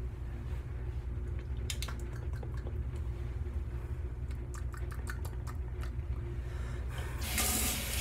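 A few faint clicks over a steady low hum, then about seven seconds in a sink tap is turned on and water runs steadily, the loudest sound.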